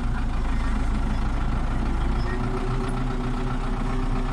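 Diesel engine of a Belarus tractor running, heard from inside its cab; a little after halfway through, the engine's note changes.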